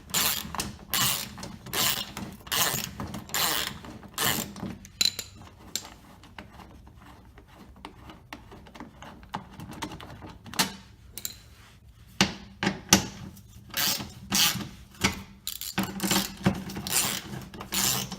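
Socket ratchet clicking in quick strokes, about two a second, as 10 mm bolts are backed out. It is quieter with finer clicking for a stretch in the middle, then strong again.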